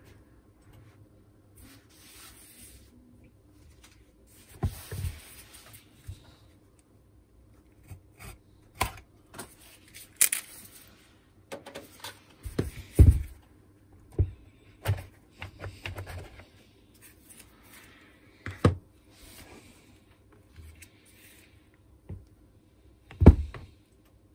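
Irregular clicks, knocks and light rattles of an angle grinder's parts and plastic housing being handled and taken apart, a dozen or so separate taps, with the loudest about halfway through and again near the end.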